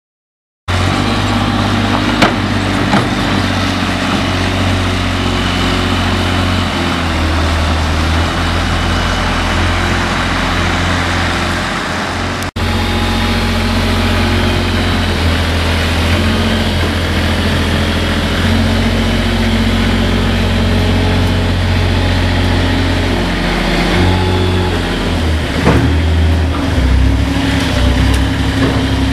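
JCB 403 compact articulated wheel loader's diesel engine running, its speed shifting up and down as the machine works.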